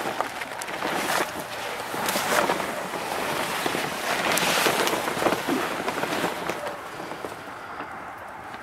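Rustling, crackling movement noise with scattered clicks, loudest midway and dying down near the end.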